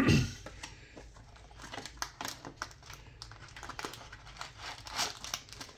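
Cardboard trading-card box being opened and handled, its wrapped card packs rustling: scattered small clicks, taps and crinkles.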